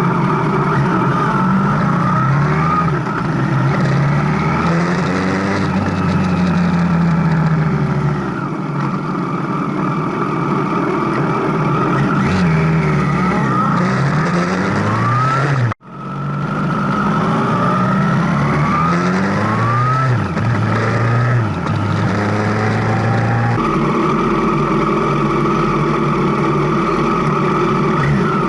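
Motorcycle engine under way, revving up and dropping back again and again as it accelerates and shifts through the gears, over steady wind and road noise. The sound cuts off abruptly about halfway through and picks up again at once.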